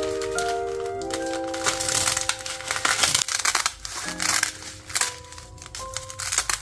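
Crisp roasted seaweed (gim) sheets crackling as they are pulled from their plastic packet and cut with scissors, a dry, irregular crunching, over background music.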